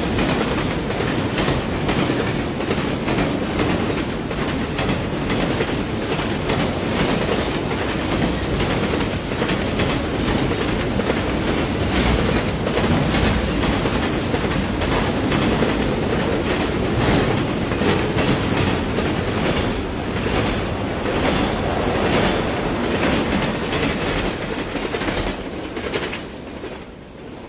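Diesel train running on the rails, its wheels clacking over the rail joints in a steady stream of clicks. The sound fades out near the end.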